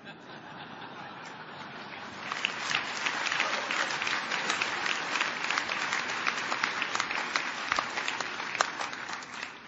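Audience clapping, swelling about two seconds in and dying away near the end.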